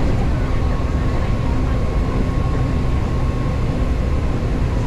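Hanshin Main Line electric train running, heard from inside the car: a steady, loud low rumble with a thin, steady whine above it.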